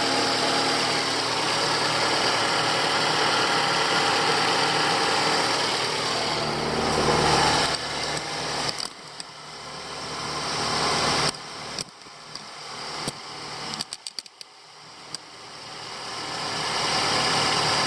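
Ford Escape 2.5 L four-cylinder engine running at idle with its accessory belt drive turning, a steady sound for the first eight seconds or so. After that it comes in short stretches that swell and cut off, with sharp clicks between them.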